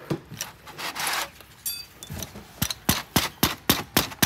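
A Honda Dream motorcycle engine's cylinder barrel being worked loose on its studs: a few clicks and a brief scrape, then sharp knocks about four a second from a little past halfway in, as the tight-fitting barrel is worked off its piston.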